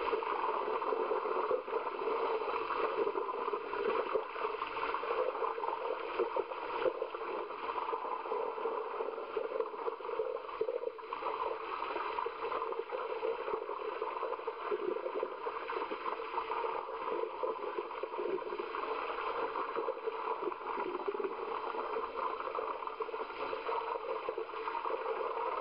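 Continuous splashing and churning of pool water from people exercising in deep water.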